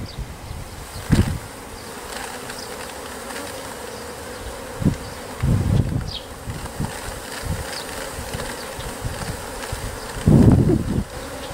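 A swarm of Japanese honeybees buzzing steadily around a wooden hive box as they are brushed off its wall, with low bumps and rustles from the brushing, the loudest about ten seconds in.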